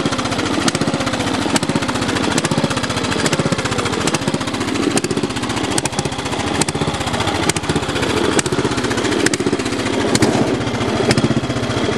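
10 hp Briggs & Stratton single-cylinder engine of a 1980 Montgomery Ward lawn tractor running steadily, a fast even chugging of firing pulses.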